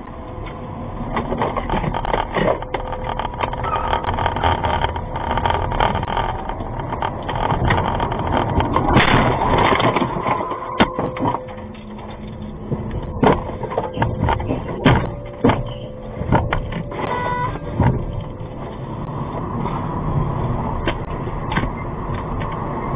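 A taxi's dashcam recording heard inside the cabin: the car running, then a heavy crash about nine seconds in as it hits another taxi, followed by several more knocks and crunches over the next few seconds. A few short beeps sound later on.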